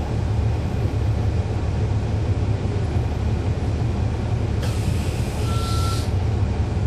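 Cummins ISL9 inline-six diesel of a NABI 40-SFW transit bus running steadily with a low rumble, heard from on board. About four and a half seconds in, a burst of air hiss from the bus's air system lasts for over a second, with a short beep near its end.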